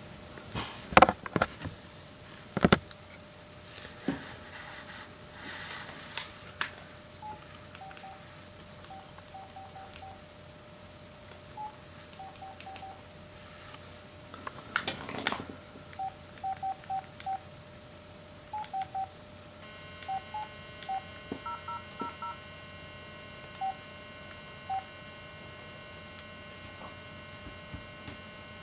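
Short electronic beeps at a few pitches, some with two tones together, in quick runs of two to five. A few sharp knocks come in the first three seconds, and a brief rustling bump comes about fifteen seconds in.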